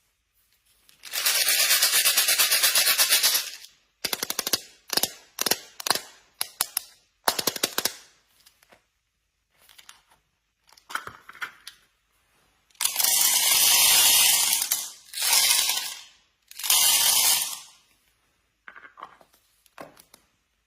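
Rapid, dense clattering of small hard objects rattling together, in several bursts of one to three seconds with shorter rattles between.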